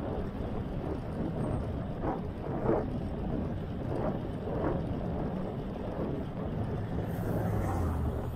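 Wind rushing over the microphone of a handlebar-mounted camera on a moving folding bike, with a steady low road rumble and a few stronger gusts in the first half.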